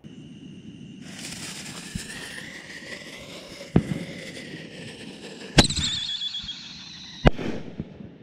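Whistling Jake canister artillery shell fireworks going off: shrill whistles over a steady hiss, with sharp bangs near two, four, five and a half and seven seconds in, the last two the loudest. After the bang near five and a half seconds a whistle falls in pitch.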